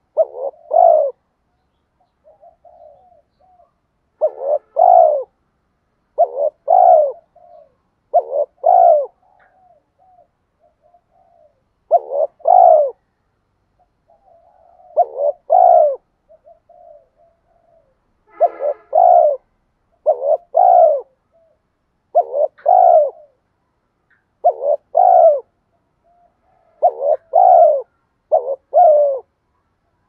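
Spotted dove calling over and over: a loud coo phrase, mostly two notes close together, about every two seconds, with soft low coos in between. This is the rapid coo-and-crow call used to stir up other male spotted doves.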